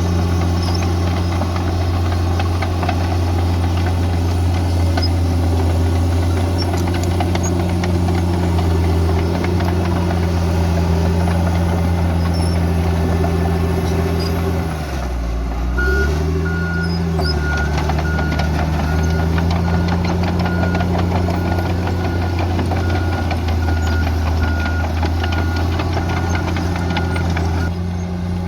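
Bulldozer's diesel engine running steadily under work. About halfway through its pitch drops briefly and comes back up, and then a reversing alarm beeps repeatedly until near the end.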